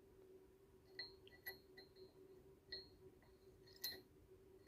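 Faint handling of small steel parts: four or five light metallic clicks and clinks, each with a short high ring, over a faint steady hum.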